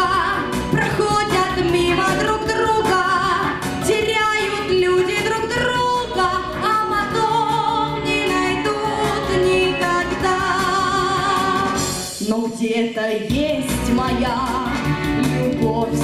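A woman singing into a handheld microphone with vibrato over a recorded pop backing track. The bass and beat drop out for about a second near the end, then come back in.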